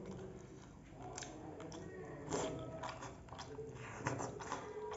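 A person chewing food eaten by hand, faint, with several short crunching clicks along the way.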